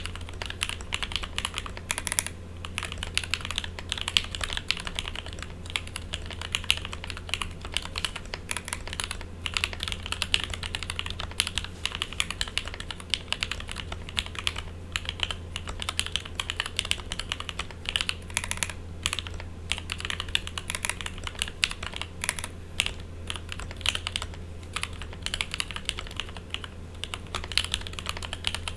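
Continuous typing on a VAL.WORKS Shirei40 40% custom mechanical keyboard with Lavender switches lubed with 205g0, GMK keycaps, and an acrylic plate and sandwich-mount case: a steady stream of key clacks at typing speed. A steady low buzz sits underneath, which the uploader notices but cannot explain.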